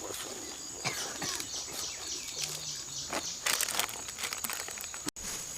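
Outdoor rural background: a steady high insect drone with bird chirps, under crinkling handling noises. The loudest rustle comes about three and a half seconds in, and the sound cuts out for an instant near the end.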